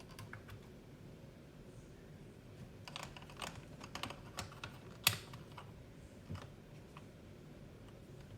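Scattered light clicks and taps from multimeters being handled on a bench, bunched about three to five seconds in, with one sharper click about five seconds in and a last one a little later.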